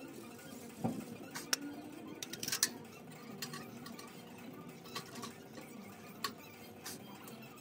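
Metal clinks and clicks of an Only Fire wire rotisserie basket being closed and latched over chicken wings and handled, a scattering of sharp separate clicks with a small cluster about two and a half seconds in.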